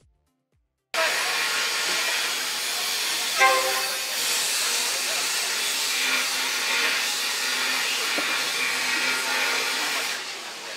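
After a second of silence, a steady outdoor hiss of the railway market starts, and a train horn gives a short toot about three and a half seconds in as the train approaches.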